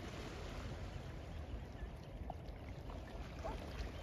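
Steady wash of sea water along the shore, with a low wind rumble on the microphone.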